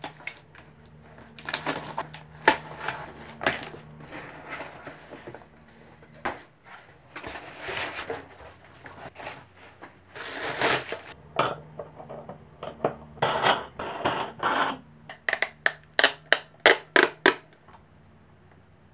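Plastic wrapping rustling and crinkling as a platform shipping scale is unwrapped and handled, with scrapes and knocks against the desk. Near the end comes a quick run of about ten sharp clicks, roughly three a second.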